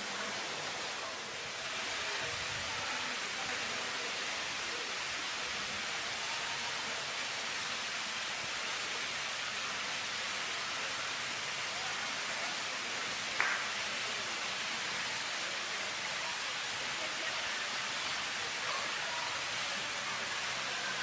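Fountain water jets splashing into a basin, a steady even hiss of falling water, with a single short click partway through.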